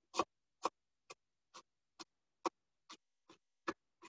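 Kitchen knife chopping shredded red cabbage on a cutting board: steady, evenly spaced knife strokes, about two a second.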